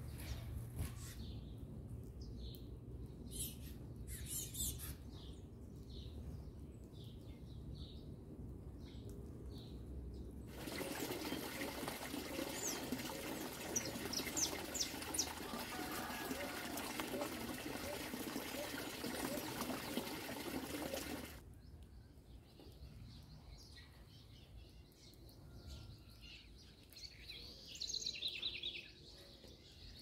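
Small birds chirping at intervals. About a third of the way in, water begins running and splashing into a split-bamboo trough bird bath, with a few chirps over it. The water stops about two thirds of the way in, and softer, sparse chirps follow.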